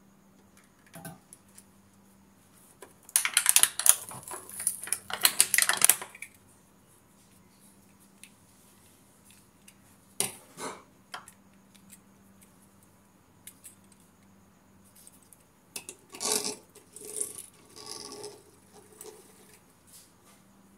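Small plastic toy tanks and ships being handled and pulled from a plastic blister pack, clattering and crackling: a loud burst lasting about three seconds starting about three seconds in, a sharp click about ten seconds in, and a second, softer burst of rattling near the end.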